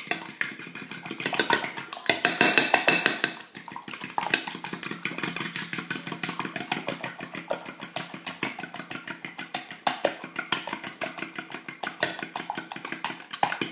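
Fork beating eggs in a glass bowl: fast, steady clicking of the metal tines against the glass, about five strokes a second, louder for a stretch a couple of seconds in.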